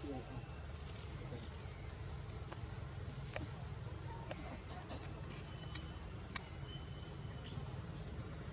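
Steady high-pitched insect chorus, crickets or cicadas droning on two constant tones, with a few light clicks scattered through it.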